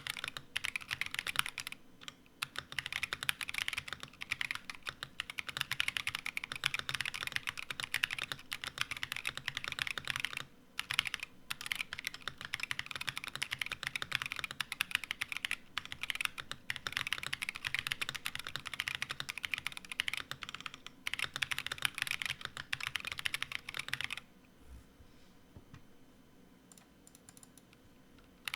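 Continuous typing on a Portico75 mechanical keyboard with unlubed Boba U4T tactile switches and PBT keycaps: a dense run of keystrokes broken by a few short pauses. The typing stops about four seconds before the end, leaving only a few faint clicks.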